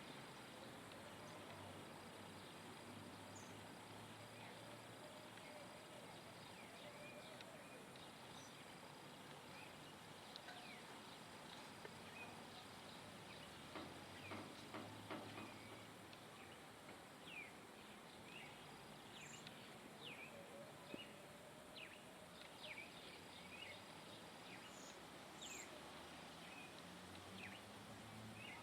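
Faint, scattered short bird chirps over a steady background hiss, coming more often in the second half.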